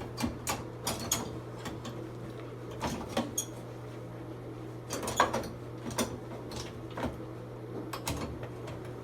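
Scattered clicks and knocks of hardware being handled as an analog electric meter is swapped for a smart meter, with a tight cluster of knocks about five seconds in, over a steady low hum.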